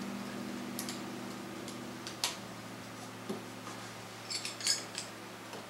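Small clicks and light metallic clinks from handling the plastic shelf clips and steel posts of a wire shelving unit during assembly, with a quick run of ringing clinks near the end. A low steady hum underneath fades out about two seconds in.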